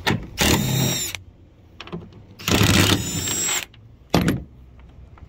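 Cordless impact driver backing out Torx T30 screws from a pickup's tailgate: two runs of about a second each with a steady high motor whine, then a short third burst near the end.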